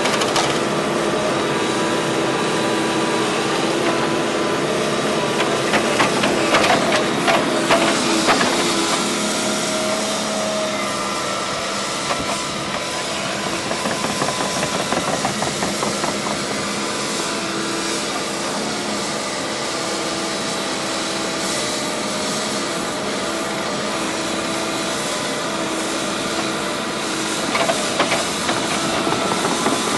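Tracked excavator's diesel engine and hydraulics running steadily under load while its ditch-cleaning bucket drags weed and mud through a water-filled ditch, with louder bursts of clattering a few seconds in and again near the end.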